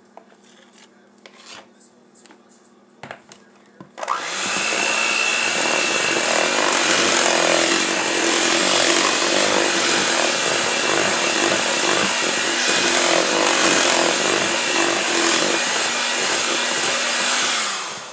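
Electric hand mixer with wire beaters switched on about four seconds in, running steadily at one speed as it beats cake batter, then switched off near the end. A few light clicks come before it starts.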